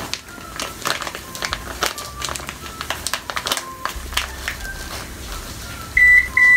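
A plastic bag of brown sugar crinkling as the sugar is poured and shaken into a measuring cup, with many small rustles and clicks. Near the end, two loud, high electronic beeps from a kitchen appliance.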